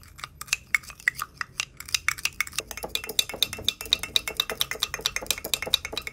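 Wooden spoon stirring sugar into rice vinegar in a small ceramic cup, knocking against the cup's inside in a quick run of light clicks, about five a second, getting faster and denser about halfway through.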